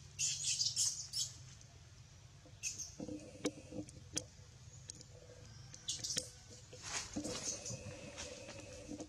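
Baby long-tailed macaque giving short, high-pitched squeaks in several scattered clusters, with a couple of sharp clicks in the middle.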